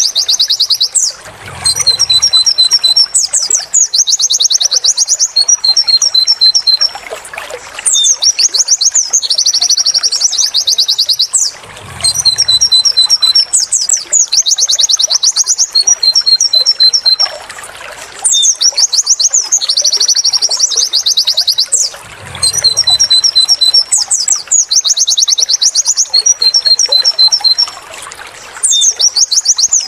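White-eye (pleci) song: fast, high chattering trills alternating with runs of short repeated 'wit wit' and 'tulit' notes. The same song phrase repeats about every ten seconds, as in a looped training recording.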